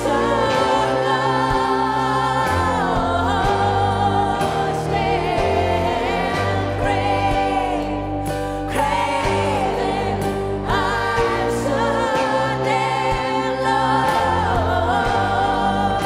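A woman singing a song live into a microphone in a strong, full voice, over held accompanying chords.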